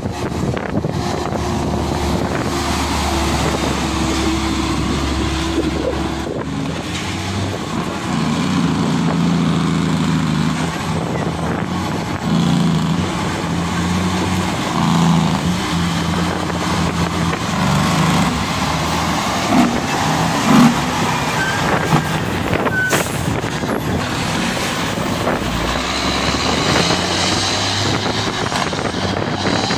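Heavy diesel trucks passing on a road, their engines running with a note that rises and falls. A brief high squeal comes a little past the middle.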